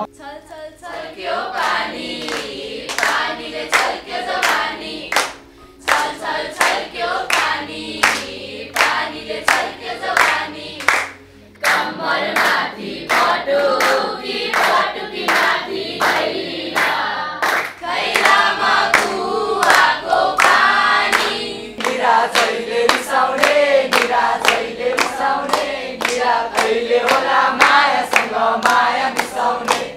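A group of schoolchildren singing a song together in chorus, keeping a steady beat with their hands, with short breaks in the singing now and then.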